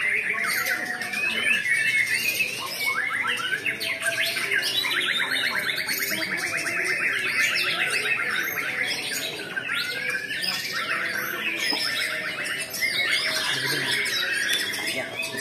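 Several caged white-rumped shamas (murai batu) singing at once in a singing contest: a dense, continuous mix of whistled phrases and chattering notes, with a long fast repeated trill from about four to nine seconds in.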